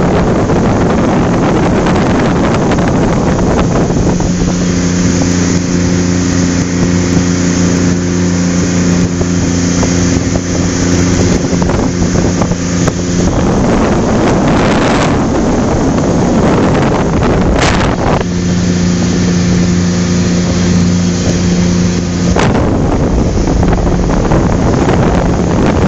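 Motorboat running at high speed, with heavy wind buffeting on the microphone. Twice the wind eases, from a few seconds in for about nine seconds and again for about four seconds later, and the engine's steady drone comes through clearly.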